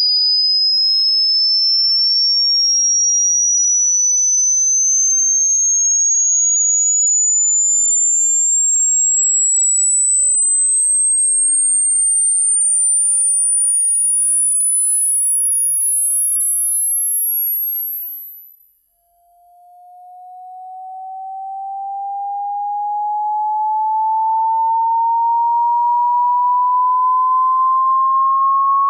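Electronic dog-whistle sound effect: a single pure tone rising slowly and steadily in pitch from high to very high, climbing out of hearing range a little over three quarters of the way through. About two-thirds of the way in, a second, much lower pure tone begins and also rises slowly.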